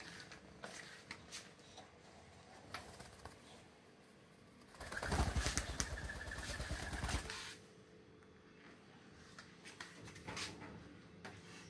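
A white dove's wings flapping hard for about three seconds as it takes off, starting a little under halfway through, with faint scattered clicks before and after.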